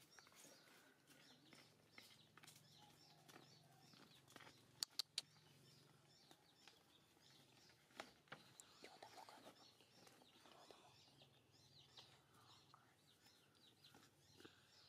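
Faint outdoor ambience with birds chirping softly, broken by three sharp clicks in quick succession about five seconds in and another click near eight seconds.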